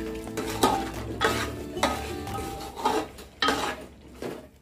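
A metal spoon stirring thick chicken masala in a metal cooking pot, scraping and clinking against the pot in a series of strokes.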